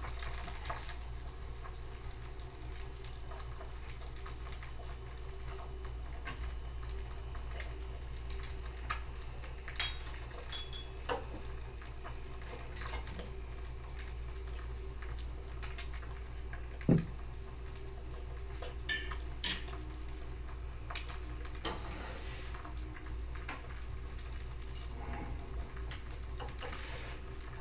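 Egg frying in a cast iron skillet: a faint oil sizzle with scattered small pops and ticks over a steady low hum. A metal spatula clinks against the pan now and then, with one sharp knock about 17 seconds in, the loudest sound.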